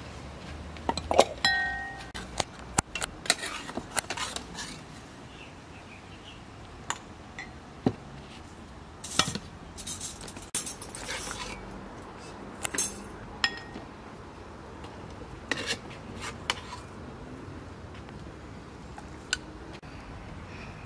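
Dishes and cutlery clinking in irregular knocks and taps, busiest at the start, with one clink ringing briefly about a second and a half in.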